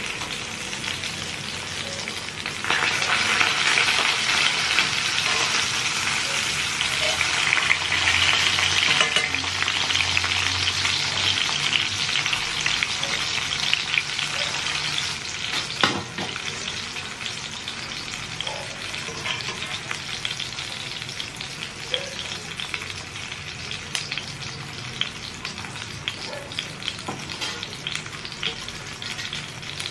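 Breaded pork cutlets shallow-frying in oil in a cast-iron skillet: a steady crackling sizzle that grows louder a few seconds in and eases off after the middle, with one sharp tap about halfway through.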